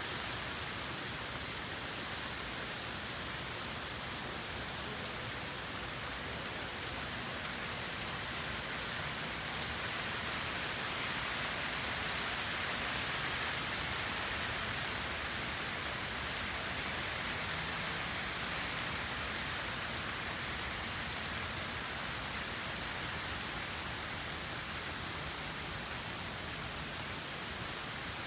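Steady rain falling and pattering on a surface, an even hiss with occasional faint individual drop ticks.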